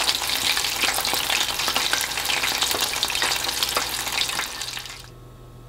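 Chicken karaage pieces deep-frying in hot oil: dense crackling and sizzling, with many small pops. It fades out about five seconds in, leaving only a faint steady hum.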